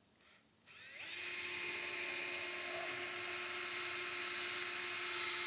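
Cordless drill spinning up about a second in, then running at a steady whine as its bit drills a small dimple into the end of a lawn tractor's axle shaft.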